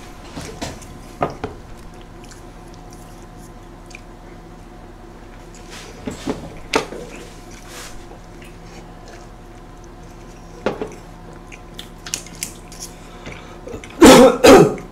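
Close-miked mukbang eating: biting into and chewing a big burger, with soft wet squishing and a few sharp smacks and clicks. Near the end come two loud, short bursts from a person's voice.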